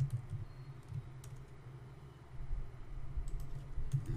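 Computer keyboard keys clicking: a few irregular keystrokes with gaps between them, coming more often again near the end.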